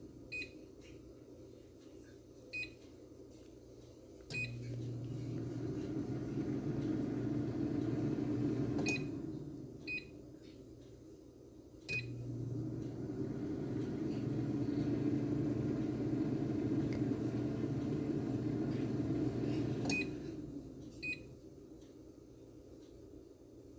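T-Fal air fryer control panel beeping at each button press, with the fan starting up and running steadily twice, from about four to nine seconds in and again from about twelve to twenty, each run starting and stopping with a beep as the settings are changed.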